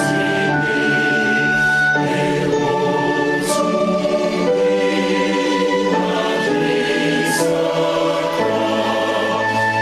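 Choir singing slowly in harmony, holding each chord for a second or two before moving to the next.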